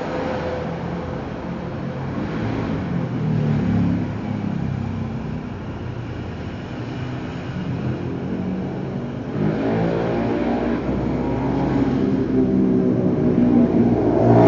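Motor vehicle engines passing by: one swells and fades about four seconds in, and another comes in about halfway through and grows louder toward the end.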